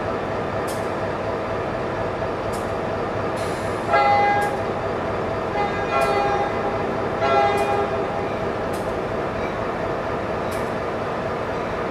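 Train horn sounding three chord-like blasts, short, longer, short, over the steady rumble of a train.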